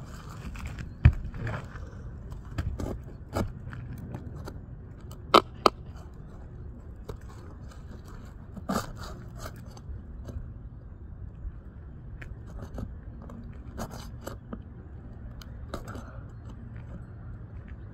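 Irregular handling noises: scrapes, crunches and scattered sharp clicks, the loudest about a second in and a pair around five and a half seconds in, over a steady low hum.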